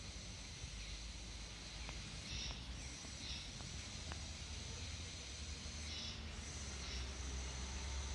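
Outdoor ambience: a low steady rumble, a little louder near the end, with a few short high bird chirps, two about two and a half to three seconds in and two more about six to seven seconds in.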